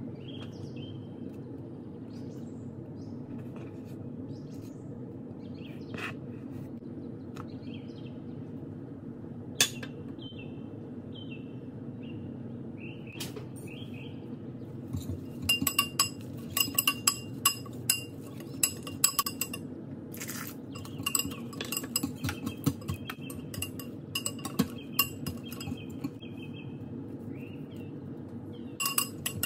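Batter being mixed in a glass bowl with a metal utensil: rapid clinks of metal against glass, with the bowl ringing, starting about halfway through. Before that there are only a few separate taps over a steady low hum.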